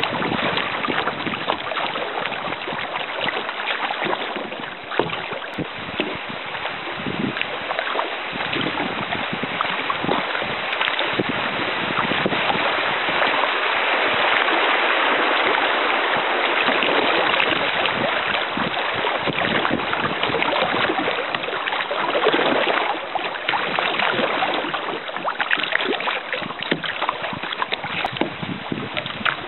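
Shallow river water rushing and splashing around a kayak's hull as it runs a riffle. The sound swells through the middle and eases off near the end.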